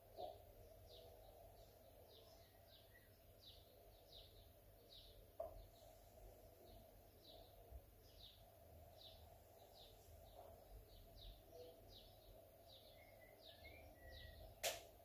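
Near silence with faint, repeated high chirps from a small bird, about two a second, over a low steady hum. A single sharp knock near the end is the loudest sound.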